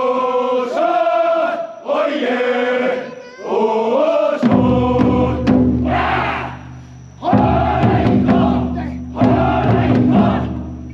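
Men's voices chanting together in a pitched chorus, then loud massed shouts from about four and a half seconds in, with a deep steady hum beneath.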